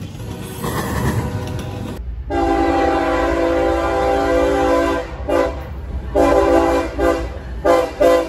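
Freight cars rolling past with rumbling wheel noise, then a diesel locomotive's multi-chime air horn: one long blast of about three seconds followed by four shorter blasts.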